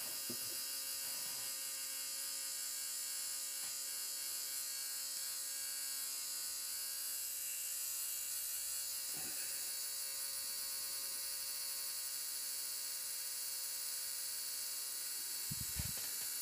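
R1 Wurks 21.5 brushless RC motor spinning steadily on a motor analyzer during a timing reading, with its endbell timing set to 20 degrees: a steady electric whine made of many fine tones. Two faint knocks from the motor being handled, one midway and one near the end.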